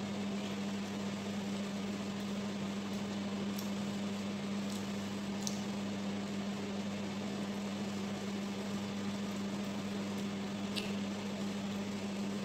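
Steady low electrical hum from a running kitchen appliance, with an even hiss under it. A few faint mouth clicks from chewing come through, about halfway through and near the end.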